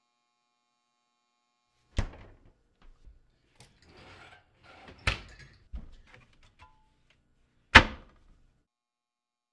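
Kitchen doors shutting with three sharp thuds: a refrigerator door about two seconds in, another knock about five seconds in, and a cupboard door near the end, the loudest of the three. Softer rustling and handling noises come around the middle one.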